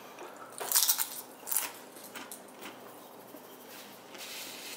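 Crisp crunching as a tortilla chip is bitten and chewed, loudest in two short bursts within the first two seconds. Near the end, a paper napkin is rubbed over the fingers with a steady papery rubbing.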